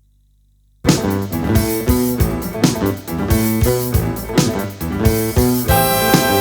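Jazz music played from a vinyl record through a Grado Red phono cartridge: a faint low hum, then the band starts abruptly about a second in with guitar and drums, and long held horn notes come in near the end.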